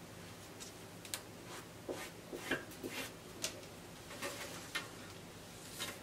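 Light scratches and taps of hands marking a curve on folded Ankara fabric with a tape measure, about a dozen irregular short strokes, over a faint steady low hum.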